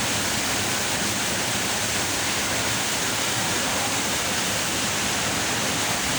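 Waterfall pouring into a pool: a steady, unbroken rush of water.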